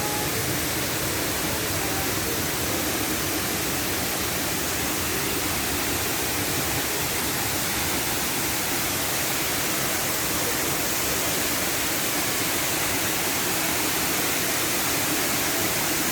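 Waterfall pouring: a steady, even rush of water with no breaks.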